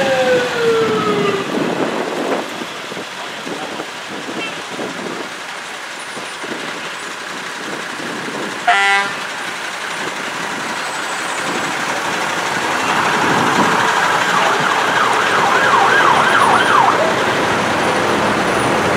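Fire trucks driving past with their diesel engines running. A siren falls in pitch at the start, a short horn toot sounds about nine seconds in, and an electronic siren yelps rapidly up and down for a few seconds near the end.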